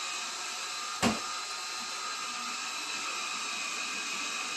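Cordless drill motor whirring steadily while driving a screw into the wall, with a sharp click about a second in.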